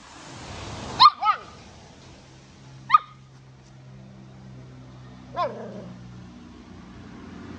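A puppy barking in short, high-pitched yaps, each dropping in pitch: two in quick succession about a second in, one near three seconds, and a last one after five seconds.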